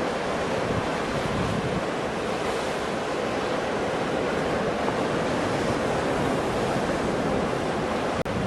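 Strong storm wind rushing and buffeting the microphone: a loud, steady rush of noise that breaks off for an instant near the end.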